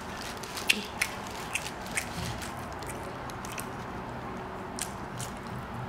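A person eating a sandwich: chewing and mouth sounds, with a few brief sharp clicks.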